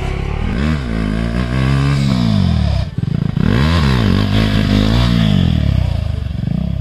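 KTM Duke 390's single-cylinder engine running without its exhaust muffler, revved hard several times, its pitch climbing and dropping with each rev and shift. The sound dips briefly about three seconds in.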